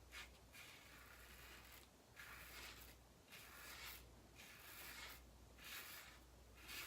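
Razor drawn over lathered stubble in about a dozen short, faint scraping strokes.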